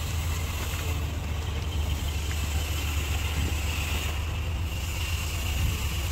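A motor running steadily: a low hum with a faint high whine over it.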